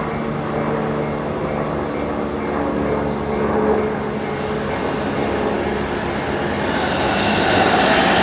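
Electric train running through a level crossing: a steady rumble with a low held hum, growing louder near the end.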